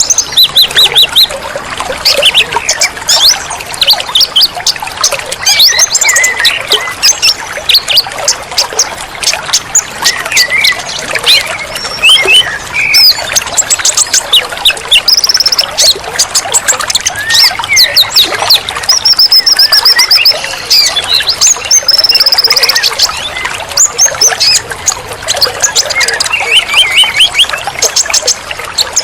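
Several wild birds singing and chirping densely, with rapid repeated notes and short trills, over the steady trickle of running water.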